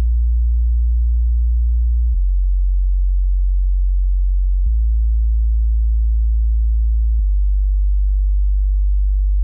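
Deep sine-wave subwoofer test tone, steady and loud, stepping to a different low pitch three times, about every two and a half seconds.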